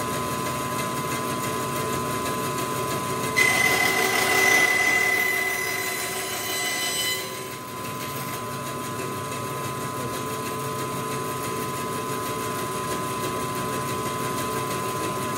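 Bandsaw running steadily. About three seconds in, its blade cuts along the edge of an oak board on a sliding sled for about four seconds, adding a louder high hiss and whine, then the saw runs on freely.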